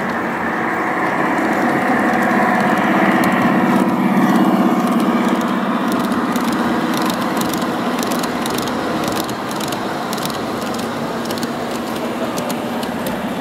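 Large-scale 45 mm gauge model train rolling past close by: a steady running hum that swells as it nears, then rapid light clicking of its wheels on the track as the coaches go by.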